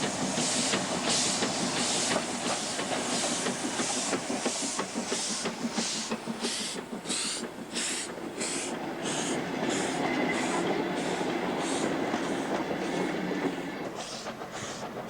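Coal-fired steam locomotive running, its exhaust chuffing in a steady rhythm of about two hissing beats a second over a continuous running rumble.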